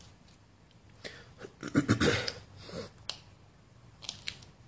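Small pieces of plastic bottle handled and bent by hand: scattered light clicks and crinkles, with one louder rough burst about two seconds in.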